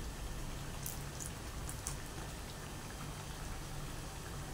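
Battered jackfruit fritters deep-frying in hot oil in a wok: a steady sizzling hiss, with a few brief crackles between one and two seconds in.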